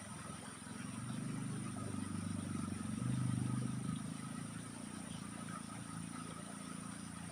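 A motor vehicle's engine passing by, growing louder to a peak about three seconds in and then fading away, over a faint steady high whine.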